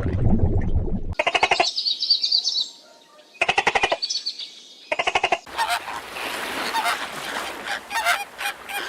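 Waterfowl honking: three short, raspy calls, then from about halfway through many birds calling over one another as a flock. Before the calls, a low noisy sound cuts off about a second in.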